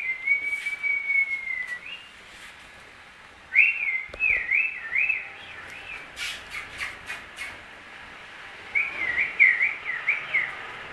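A person whistling: one long held note, then two runs of warbling whistle that rise and fall about three times a second, with a few light clicks in between.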